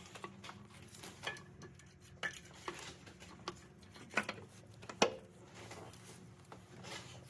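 Scattered light metallic clinks and taps of metal engine parts and hand tools being handled while a VANOS unit and its gasket are fitted on the engine, with one sharper knock about five seconds in. A faint steady low hum runs underneath.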